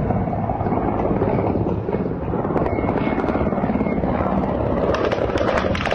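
Military helicopter's rotor chopping steadily overhead in rapid beats, the beats turning crisper about five seconds in.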